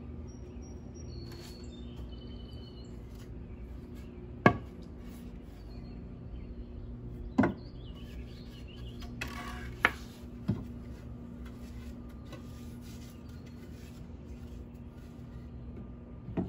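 Loose wooden boards knocking against a wooden frame as they are handled and fitted by hand: four sharp wood knocks, the first and loudest about four seconds in, with a brief scraping rub of wood on wood around nine seconds. A steady low hum runs underneath, and a few faint bird chirps come near the start.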